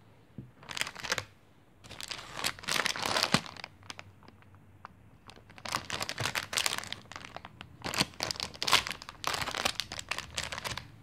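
Clear plastic bag around a craft kit crinkling as it is handled and turned over. The rustling comes in several bursts with short pauses between.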